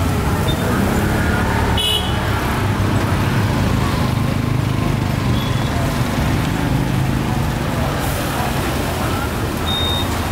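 Steady rumble of street traffic, with short high beeps about two seconds in and again near the end.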